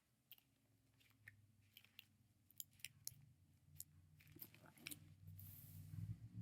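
Faint, sparse clicks and a short rustle of a Bible being picked up and handled, over a low steady hum.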